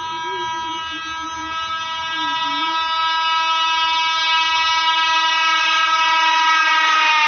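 Howrah Rajdhani Express's electric locomotive sounding one long, steady horn blast as it approaches at speed, getting louder. Near the end the horn's pitch drops as the locomotive passes, running through the station without stopping.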